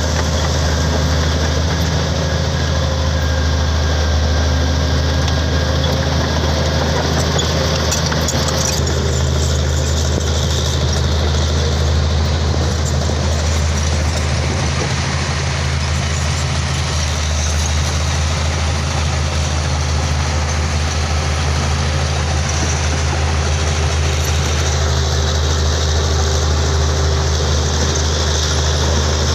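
Komatsu D65P crawler bulldozer's diesel engine running steadily, a deep low hum at an even level.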